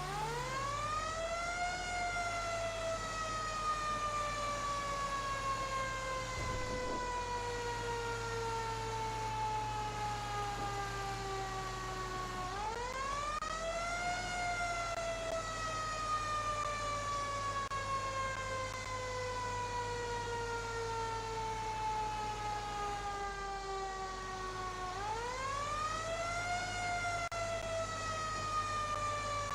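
A siren wailing: it winds up quickly in pitch, then falls slowly for about ten seconds before winding up again, three times, over a steady low hum.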